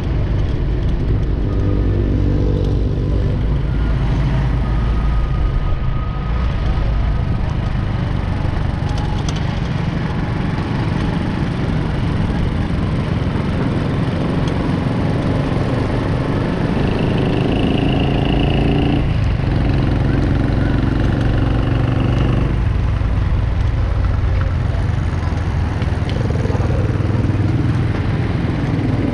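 Busy city street traffic, with motorcycle and car engines running close by and changing pitch as they pass. A steady high tone sounds for a couple of seconds past the middle.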